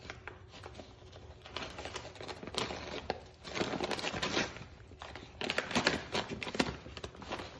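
Brown paper bag crinkling and tearing as a small Morkie pulls and chews at it, in irregular crackling bursts, loudest around the middle and again about two-thirds of the way in.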